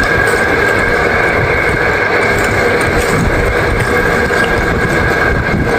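Electric meat mincer running steadily with a constant motor whine while chunks of meat are fed in and ground into keema.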